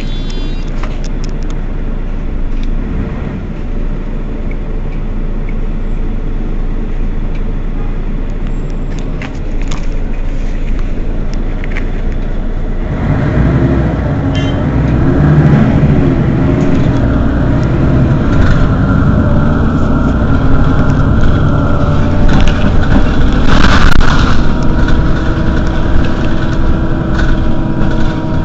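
Mercedes-Benz Citaro city bus's engine idling at a stop. About halfway through it grows louder and deeper, with a steady whine building later, and there is a short hiss near the end.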